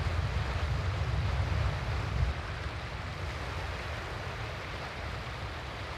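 Steady wind-and-surf sea ambience, a low rumbling noise with a faint hiss above it, slowly fading in its second half.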